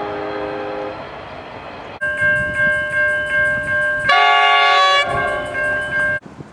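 Train horns sounding in two clips. A low multi-note horn chord holds and then stops about a second in. From two seconds in a higher-pitched multi-note horn sounds, swelling into a louder, fuller chord for about a second in the middle, and cuts off abruptly near the end.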